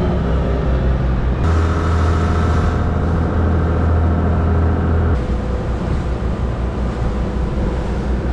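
Boat engine running under way, a steady low drone with the rush of water and wind over it. The sound changes abruptly about a second and a half in and again just past five seconds.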